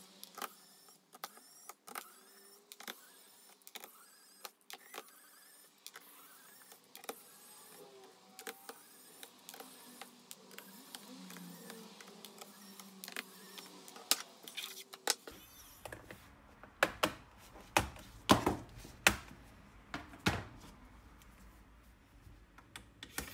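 A cordless electric screwdriver whirs briefly as it backs screws out of a laptop's plastic bottom case, with small clicks of screws and the bit on the plastic. From about two-thirds of the way in come a series of louder plastic clicks and snaps as the access cover over the drive and memory is worked loose and lifted off.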